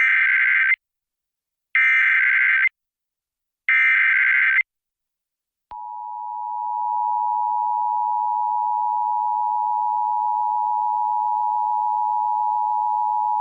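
Emergency Alert System SAME header: three bursts of screeching digital data, each about a second long with a second's gap between, encoding a Tornado Warning. About six seconds in, the EAS attention signal starts: a steady two-tone beep of 853 and 960 Hz together, swelling up over the first second and then holding level.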